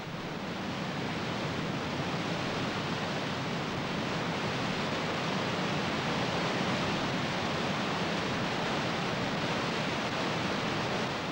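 Waterfall rushing: a steady, even noise of falling water, growing a little louder over the first few seconds.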